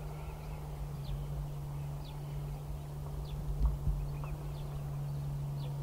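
Outdoor ambience: a steady low hum with wind rumbling on the microphone, and short, high, falling chirps repeating every half second to a second.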